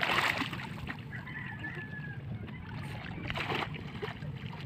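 Water splashing as a child kicks in shallow sea water at the start, then a distant rooster crowing once for about a second, over a steady low background.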